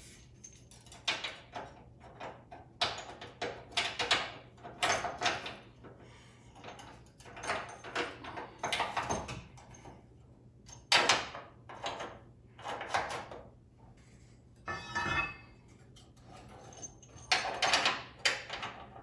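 Steel carriage bolts on pull wires scraping, rattling and clinking against the inside of a pickup's steel frame rail as they are fed up through the frame holes for fifth-wheel hitch rails, in irregular bursts with short pauses.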